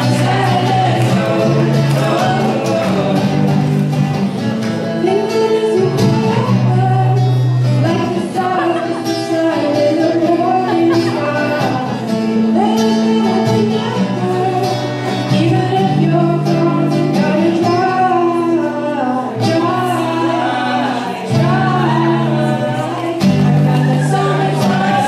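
Several young voices singing a song together through microphones, accompanied by a strummed acoustic guitar, its low chords held and changing every second or two.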